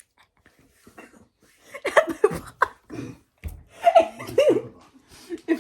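People laughing and chattering indistinctly, starting about two seconds in, with a short knock partway through.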